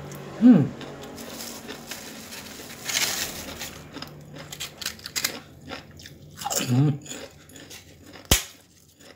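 A man eating: chewing and mouth noises with short hums, a brief rustle about three seconds in, and one sharp snap near the end as a large kerupuk cracker is broken in two by hand.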